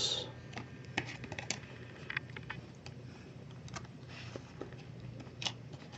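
Faint, scattered clicks and light ticks of chrome baseball cards being handled and shuffled between fingers, over a low steady hum.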